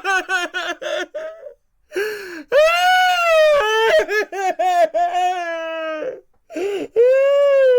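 A high-pitched voice crying: short, choppy sobs at first, then long, loud wailing cries broken by brief pauses and gasping breaks.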